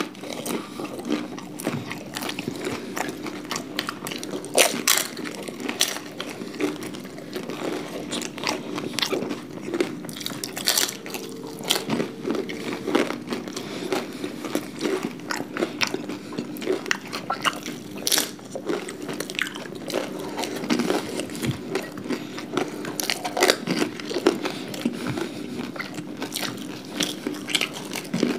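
Close-up crunching and chewing of crisp panipuri (golgappa) shells and papdi chaat by two eaters, with many sharp, irregular crunches.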